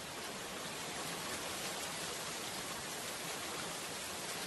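Steady rain falling, an even hiss that holds at one level throughout.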